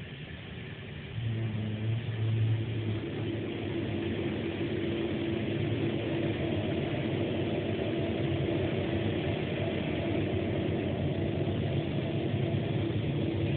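Passenger train running, heard from inside the carriage: a steady rumble and hum that gets louder about a second in and then holds even.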